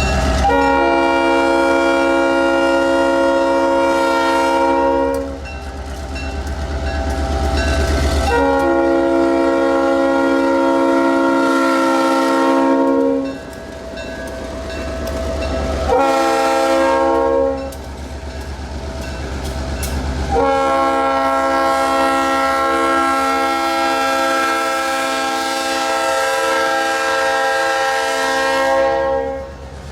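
Train air horn sounding a chord of several notes in four blasts: long, long, short, then a final long one, the standard grade-crossing signal. A low rumble runs underneath, strongest during the first two blasts and around the short one.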